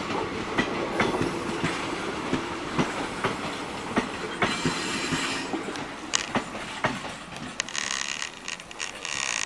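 Passenger coaches of an express train rolling past at speed, wheels clacking irregularly over rail joints over a steady rumble. The sound eases as the last coach passes, and a high-pitched noise rises near the end.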